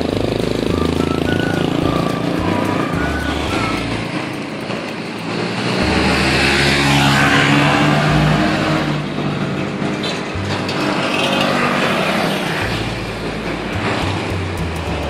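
Street traffic with a small motor scooter riding past close by. Its engine note is loudest from about six to nine seconds in.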